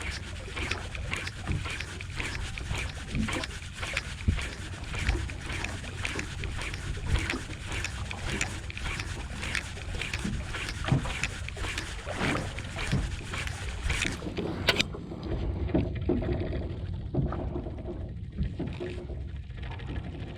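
Wind and sea noise aboard a small fishing boat: water splashing and slapping against the hull in a constant crackling hiss. About three quarters of the way through, the sound suddenly turns duller.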